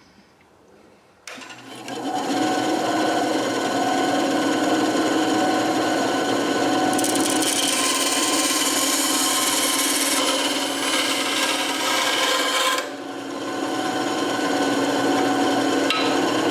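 A power tool running steadily against material, starting suddenly about a second in, with a brief dip in level near the end.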